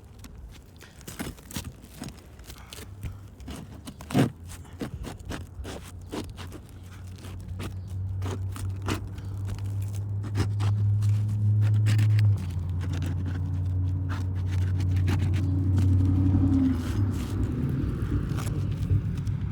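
Asphalt roof shingles being pried and scraped loose, with repeated short clicks and scrapes. A motor vehicle engine runs close by, growing louder about halfway through and becoming the loudest sound.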